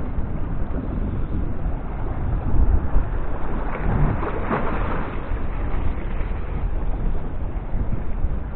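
Wind buffeting the camera microphone: a steady, rumbling noise.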